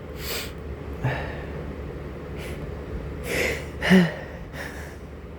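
A man's allergy-sneeze build-up: a series of sharp, breathy gasping inhalations and snorts, with one short, loud voiced catch of breath about four seconds in. A steady low hum runs underneath.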